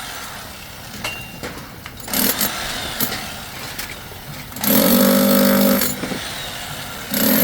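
A machine runs in two bursts of about a second each, a steady pitched hum with hiss, starting and stopping sharply, over steady background noise.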